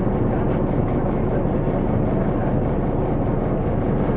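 VDL Citea SLFA 180 articulated bus's engine running steadily, a constant low hum with an even level and no change in pitch.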